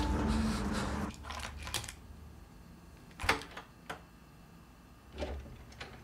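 Background music dies away about a second in, leaving a quiet room with a few scattered short clicks and soft knocks, about six in all.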